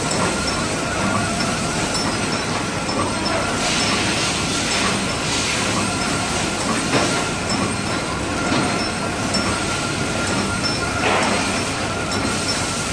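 Muffin flow-wrapping machine and its conveyor running: a steady mechanical clatter under a constant high whine, with short hissy surges a few times.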